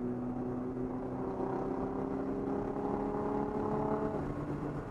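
Nissan 300ZX Z32 twin-turbo V6 pulling under acceleration, heard from inside the cabin. The engine note climbs slowly and grows louder, then drops away suddenly about four seconds in.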